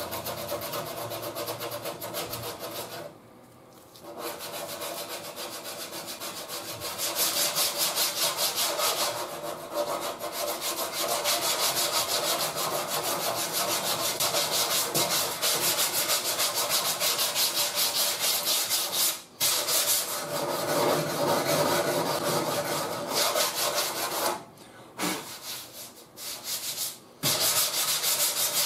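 Hand sanding block with 80-grit paper rubbed rapidly back and forth over body filler, a steady scratchy rasp of quick strokes broken by a few short pauses.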